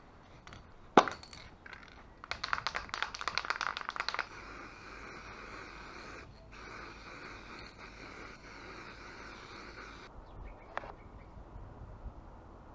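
Workshop handling noise: a sharp knock about a second in, then about two seconds of rapid rattling clicks, then a steady hiss that cuts off suddenly about ten seconds in.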